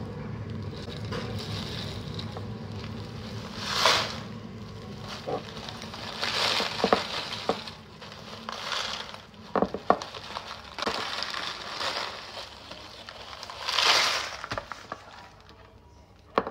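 Kraft paper tea bag crinkling and rustling as dry milk oolong tea leaves are shaken out of it into a glass jar, the leaves ticking and rattling against the glass. There are several louder crinkles of the bag and a scatter of sharp little ticks near the middle.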